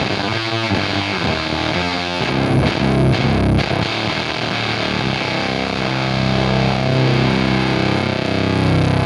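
Electric guitar (Fender Jaguar, bridge humbucker) through a Soda Meiser-style vintage fuzz pedal at maximum gain, played into a Hiwatt amp and a 4x12 cab with Vintage 30 speakers. It gives a heavily distorted, gnarly fuzz tone: choppy, stuttering strums in the first couple of seconds, then chords left to sustain.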